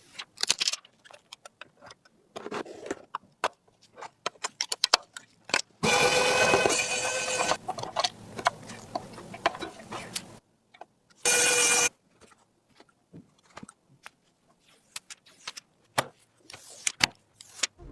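Clicks, snaps and metallic rattles of computer parts being handled and fitted together, with a louder rattling stretch about six seconds in and a short loud burst about eleven seconds in.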